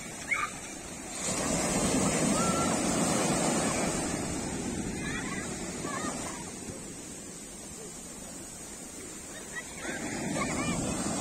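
Small waves washing up over a sandy beach close to the microphone. The wash swells about a second in, ebbs away over several seconds, and a second wave comes in near the end.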